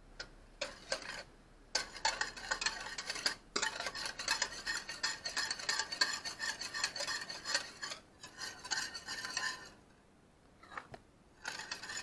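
Stainless-steel wire whisk beating soy milk and sugar in a ceramic bowl, its wires rattling and clinking against the bowl in rapid strokes. A few short strokes come first, then steady fast whisking for about eight seconds, then a few more strokes near the end.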